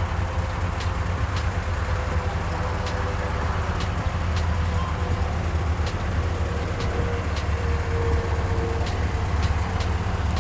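Turbocharged Ford 2.3L four-cylinder engine in a 1963 Volvo Amazon running steadily with a low exhaust rumble, with scattered sharp ticks over it.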